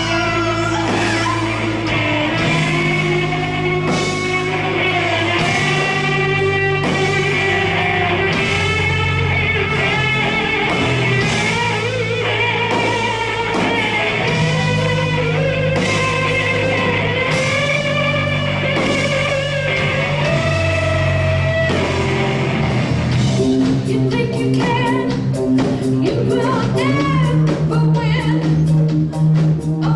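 Live rock band playing electric guitar, bass guitar and drum kit, with singing. The drum hits stand out more sharply in the last third.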